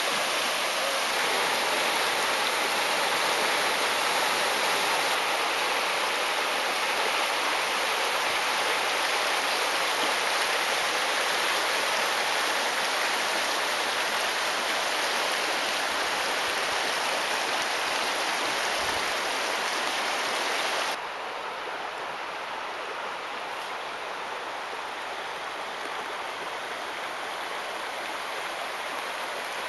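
River water rushing over shallow riffles and through a logjam, a steady loud rush. About two-thirds of the way through it drops suddenly to a softer flow.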